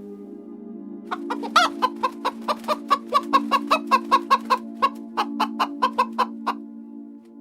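Chicken clucking in a rapid run of short calls, about four a second, starting about a second in and stopping near the end, with one louder call early in the run. Background music with a steady low drone plays underneath.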